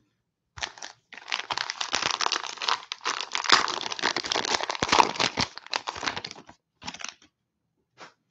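The plastic wrapper of a 2021-22 Donruss basketball cello pack being torn open and crinkled in the hands: a dense run of crackling for about six seconds, then two short crinkles near the end.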